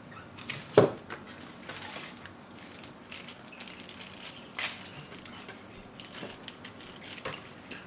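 Hands handling computer parts: a few scattered clicks and knocks, the sharpest about a second in, with light rustling between them.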